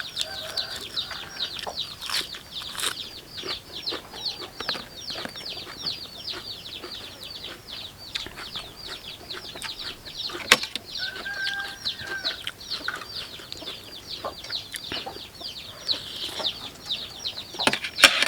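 Many chicks peeping continuously, fast falling peeps overlapping several times a second, with a few sharp knocks, the sharpest about ten and a half seconds in.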